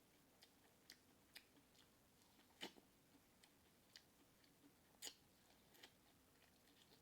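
Mouth sounds of a person eating, close to the microphone: faint, scattered smacking clicks, about one or two a second, with two louder ones about two and a half and five seconds in.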